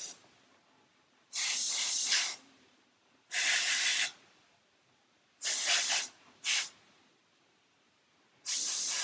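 Airbrush hissing in short trigger-pulled bursts, each under a second, about two seconds apart, with one very brief extra burst about six and a half seconds in.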